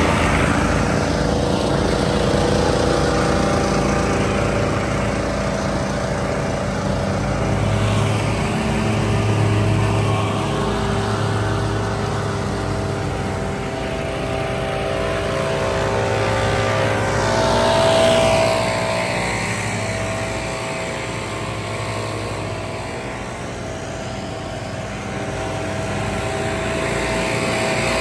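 Several small gas engines running together at once: Stihl backpack leaf blowers, a walk-behind wheeled leaf blower and a zero-turn mower, with steady engine tones under a rush of blown air. The pitch sweeps up and down as the blowers swing, with the loudest swell about 18 seconds in and another sweep near the end.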